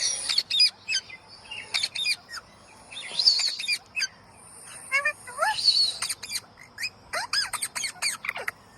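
Green parrot squawking and chirping: a string of short, sharp clicks and chirps, with a few harsh squawks about 3, 5.5 and 7 seconds in.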